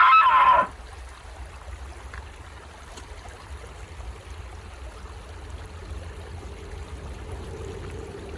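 A small stream running steadily, a continuous even rush of water.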